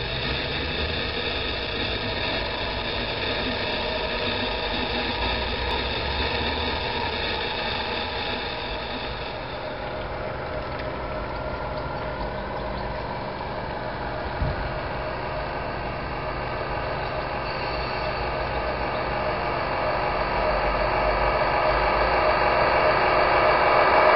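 Radio-controlled Scania model truck running, a steady engine-like drone with several held tones, growing louder over the last few seconds as the truck comes closer.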